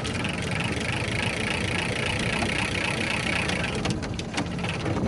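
A Scotty downrigger spool whirring as the downrigger weight is let down, with a thumb on the spool as a brake; the whir stops about four seconds in. The boat's engine idles steadily underneath.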